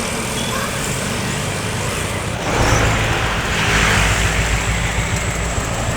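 A bus driving past, its engine and tyre noise growing louder about halfway through as it comes by.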